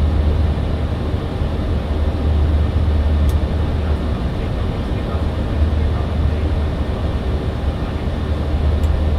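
Steady flight-deck noise of a Boeing 737-800: a constant low rumble of engines and airflow with an even hiss over it, and a faint click about three seconds in.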